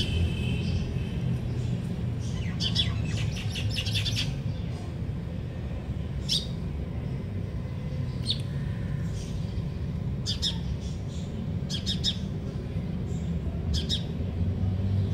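Small birds chirping, first a quick run of chirps a few seconds in, then single chirps every second or two, over a steady low background rumble.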